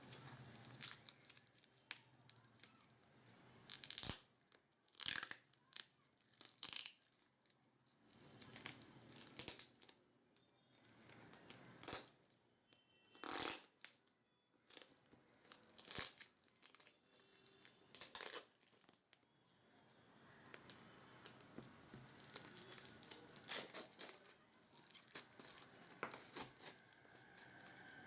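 Phone-box packaging being opened by hand: plastic wrap and paper tearing and crinkling in short, sharp strokes, with quiet pauses between them.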